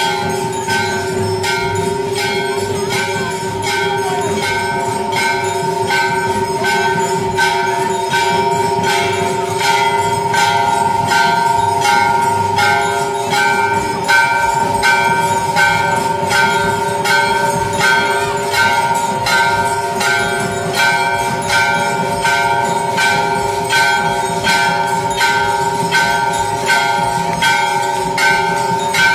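Temple bell rung over and over, struck about twice a second, its ring carrying on steadily between strokes.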